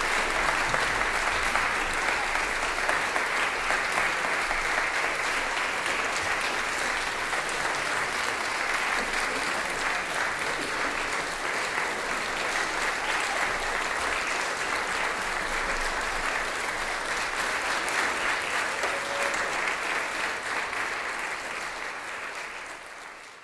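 Concert audience applauding: steady, dense clapping that fades out near the end.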